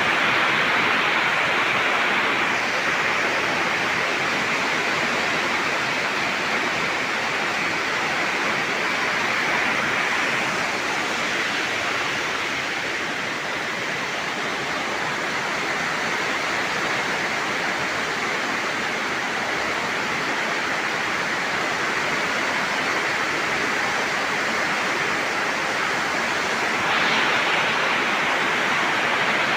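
Steady heavy rain: an even, continuous hiss of falling water.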